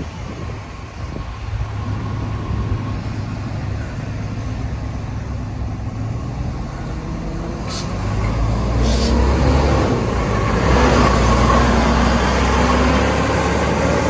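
Volvo B7TL double-decker bus's six-cylinder diesel idling, then pulling away about eight seconds in and growing louder, with a vacuum-cleaner-like turbo whine, the 'hoover' sound. Two short hisses of air come just as it moves off.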